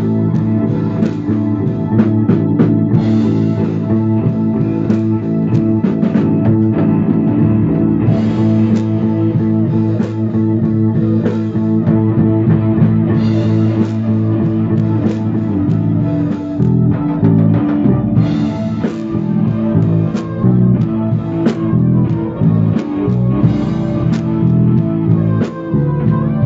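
Live instrumental band jam: electric bass guitar and drum kit playing a steady rock groove, with a cymbal wash about every five seconds.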